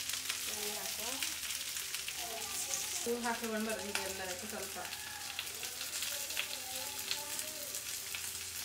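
Pieces of pathrode (colocasia leaf rolls) sizzling and crackling steadily in coconut oil on a hot tawa.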